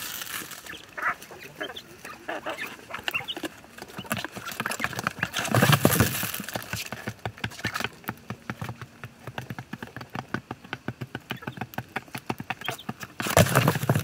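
Quail and a hen moving about, with short high chirps and many small pecking and scratching clicks. Two louder rushes of noise come about six seconds in and near the end.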